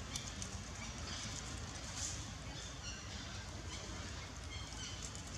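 Outdoor ambience: a steady low rumble with scattered light clicks and rustles, and a few short high chirps.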